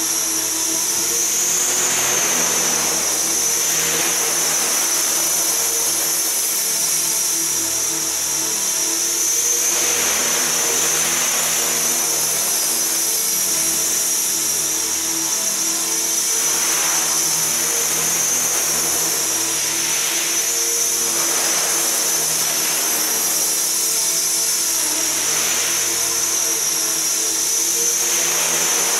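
Align T-Rex 450 SE V2 electric RC helicopter in flight: a high brushless-motor and gear whine that wavers slightly with the throttle, under the rotor's steady hum. Rushes of rotor noise swell and fade every few seconds as it manoeuvres.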